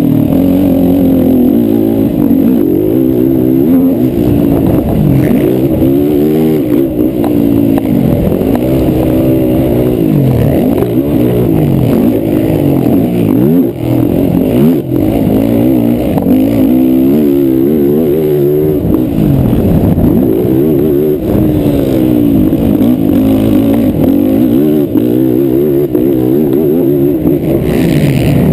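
Racing quad (ATV) engine revving hard, its pitch rising and falling over and over as the throttle is opened and closed and the gears change.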